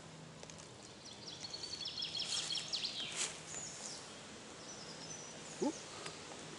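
Forest songbird singing a quick trilling phrase about a second in, followed by thin high whistles, over quiet woodland ambience with the faint rustle of dry leaf litter being moved by hand.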